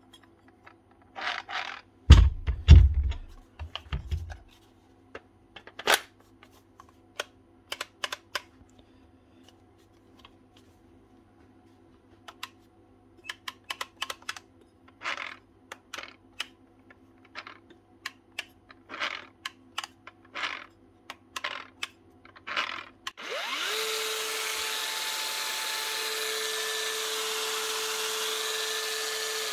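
DeWalt DCG414 54-volt cordless angle grinder handled on the bench, with scattered clicks and a few heavy knocks about two to four seconds in. About 23 seconds in it is switched on and runs steadily with a whine and hiss, starting to wind down at the very end. It is a faulty unit that only starts some of the time.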